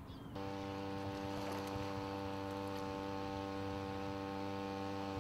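A steady, unchanging hum with evenly spaced overtones sets in abruptly about half a second in. A few short bird chirps sound just before it.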